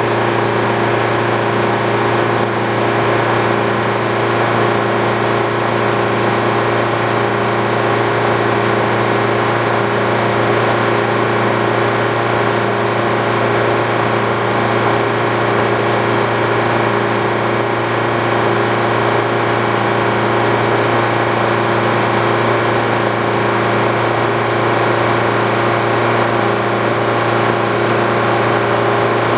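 Old Frick sawmill running steadily: an even machine hum with several steady tones, holding the same pitch and level throughout.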